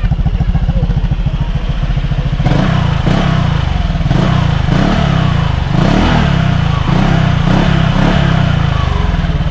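Honda Click scooter's single-cylinder engine breathing through a Sun Racing Silent Killer power pipe exhaust: it idles, then about two seconds in it is blipped repeatedly, revving up and dropping back about once a second.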